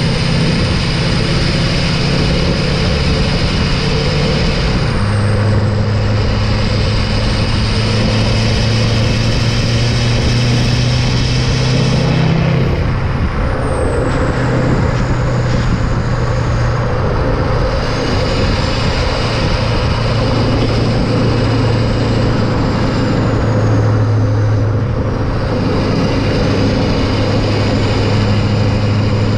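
LLY Duramax 6.6 L V8 turbodiesel running under way, heard right at the exhaust tip with road and wind rush. The engine note shifts in steps several times, and a faint high whistle rises and falls through the middle.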